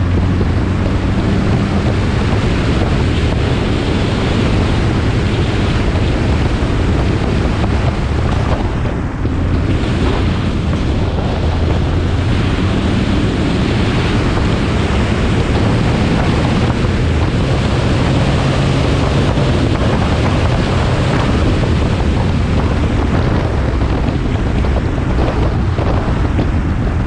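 Dodge Dart rally car driving, its engine note shifting up and down under a loud, steady rush of wind on the microphone.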